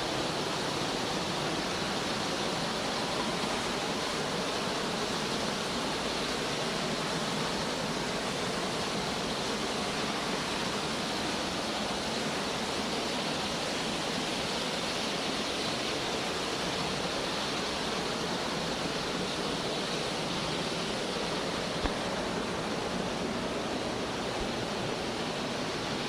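Steady rush of the Günster Waterfall, a mountain waterfall, as an even wash of noise. One short sharp knock about 22 seconds in.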